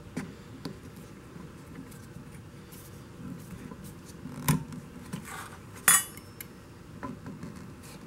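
Scattered metal clicks and clinks as an outboard water pump housing with a new impeller is worked down over the driveshaft and studs onto the lower unit. A louder knock comes about four and a half seconds in, and a sharp ringing metal clink about six seconds in.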